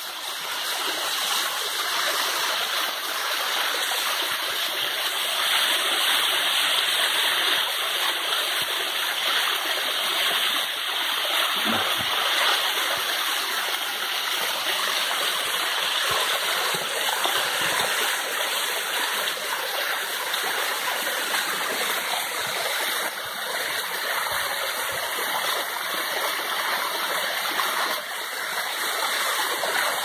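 Small cascading waterfall: water pouring and splashing over stepped rock ledges in a steady rush.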